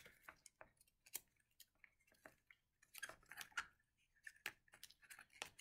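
Faint, irregular small clicks and crinkles of sticky tape and construction paper being handled as taped straw ends are pressed onto a paper loop.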